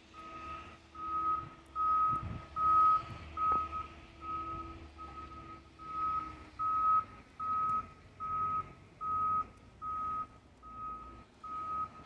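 Reversing alarm of a loader beeping steadily, one even tone about every three-quarters of a second, over the low drone of its engine.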